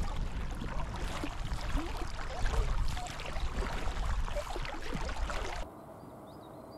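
Water splashing and gurgling around a paddled inflatable boat, with a strong low rumble. About five and a half seconds in it cuts abruptly to a much quieter scene with a bird's repeated high chirps.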